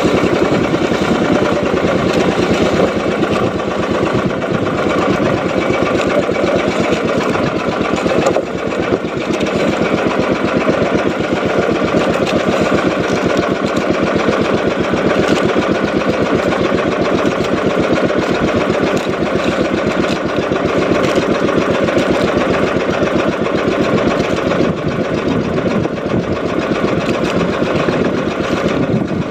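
Small fishing boat's engine running steadily while trolling a lure, a fast, even engine pulse with a brief dip about eight seconds in.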